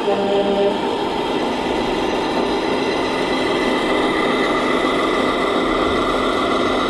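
Radio-controlled scale model army ambulance truck driving slowly on a dirt track, giving off a steady engine-like running sound.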